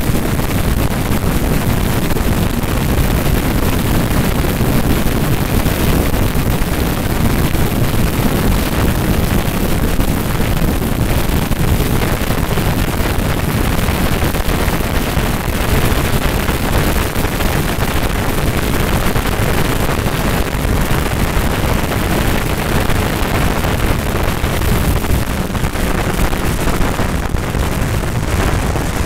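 Heavy wind rush and buffeting on the microphone of a Kawasaki ZX-10R sport motorcycle at highway speed, with the bike's engine running underneath.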